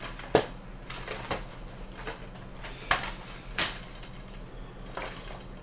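A DVD box set's packaging being handled and turned over: about five short taps and rustles at irregular intervals, with a faint steady low hum underneath.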